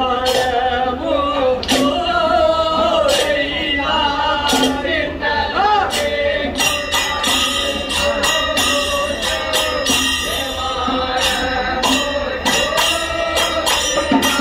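Kanyarkali folk performance music: men singing a chant-like song over hand percussion and metal cymbal strokes. The beat grows denser and quicker about six and a half seconds in.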